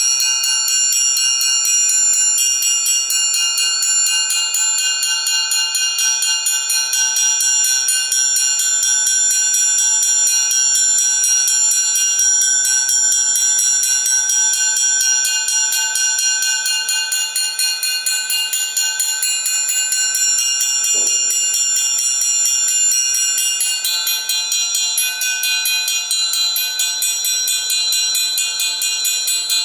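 Amplified orchestral triangle struck in a fast, steady tremolo, giving a continuous metallic ring made of many high overtones. The mix of overtones shifts slightly about two-thirds of the way through.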